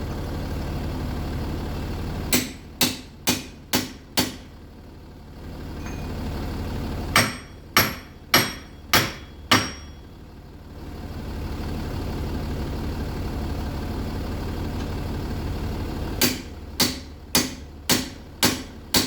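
Hammer blows on a Jaguar XF's seized front wheel hub, in three rapid runs of about five or six strikes each. The car's diesel engine idles steadily underneath.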